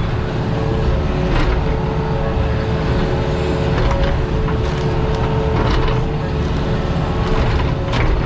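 Diesel engine and hydraulics of compact earthmoving equipment running steadily under load, with a steady hydraulic whine and a few sharp knocks or cracks scattered through.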